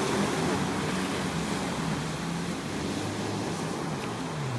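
Jet ski engines running out on the water, their pitch wavering as the throttle goes up and down, with a dip and rise in pitch near the end.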